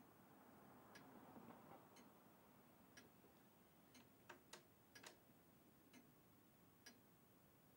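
A clock ticking about once a second in a near-silent room, with a few sharper clicks between about four and five seconds in.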